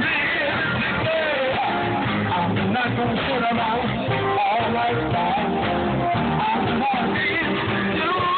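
Live band playing: a singer over guitar, bass and a steady beat.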